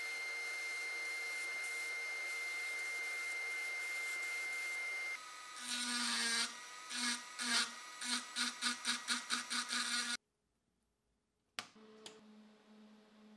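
Sandblasting: the blast nozzle hisses steadily inside a blast cabinet for about five seconds. Then a handheld rotary tool with a small burr grinds a steel vise part, its whine swelling about four times a second. After a short silence, two clicks of the TIG welder's panel switches, and the welder starts a low steady hum.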